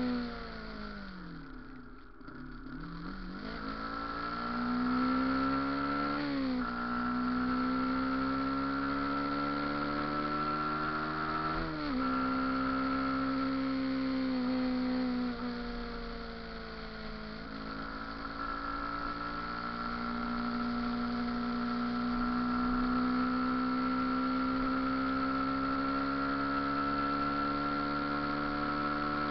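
Motorcycle engine slowing, then pulling away and revving up through the gears. Its pitch climbs and drops sharply at three gear changes, then rises slowly for the rest of the time, with a steady high whine alongside.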